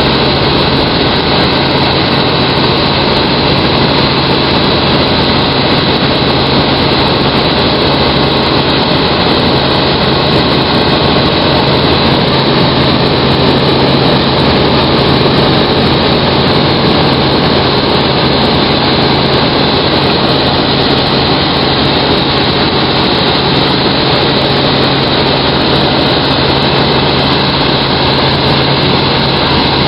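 Helicopter engine and rotor noise heard from inside the cabin in flight: a loud, steady drone with a constant low hum underneath.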